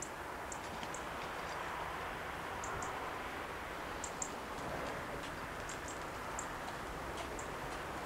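Steady outdoor background hiss with faint, short high-pitched ticks scattered irregularly through it, several coming in quick pairs.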